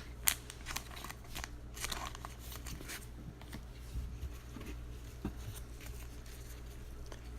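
Trading cards being handled and flipped through: a few soft clicks and slides of card on card in the first three seconds, then only a faint steady low hum.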